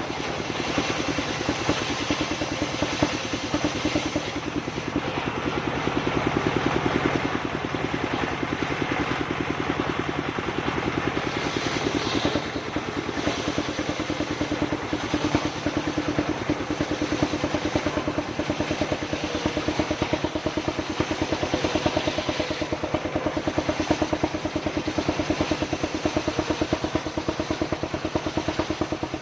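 Engine of a wood-sawing machine running steadily with a rapid, even pulsing.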